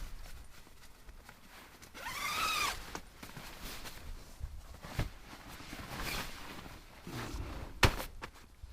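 Footsteps and scattered knocks on a portage trail, the loudest near the end. About two seconds in there is a short pitched squeak that rises and falls.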